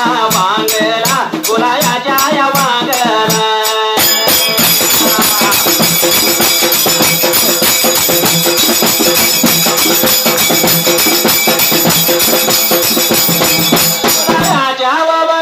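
Dhangari ovi folk song. A man sings over a steady rattling percussion beat for the first few seconds, then about ten seconds of the accompaniment alone with held tones under the rattling beat, and the singing comes back near the end.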